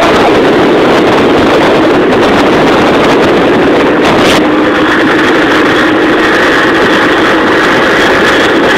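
Motor scooter engine running steadily at cruising speed, about 60 km/h, with wind rushing over the microphone.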